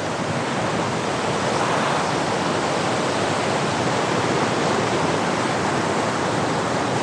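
Waterfall and its stream rushing steadily over rock, a dense unbroken noise of falling water.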